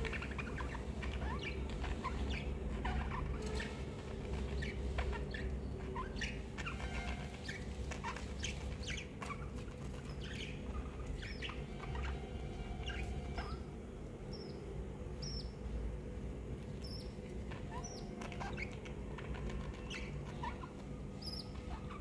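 Budgerigars chirping in many short, quick calls scattered throughout, over a steady low hum.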